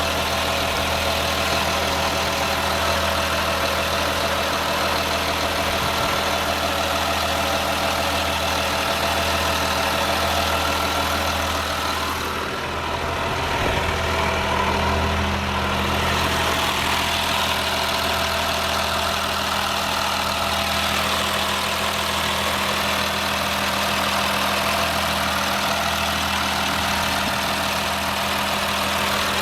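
School bus diesel engine idling steadily, with a brief change in its tone about halfway through.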